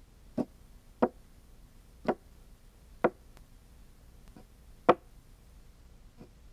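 Solid geometric blocks knocking as they are set down on a hard surface: a series of separate sharp knocks about a second apart, irregularly spaced, some fainter than others.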